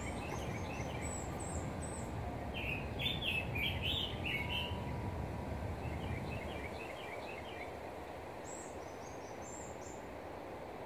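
Songbirds singing in short bursts of quick chirps and high twitters, loudest a few seconds in, over a steady low background rumble that eases off in the second half.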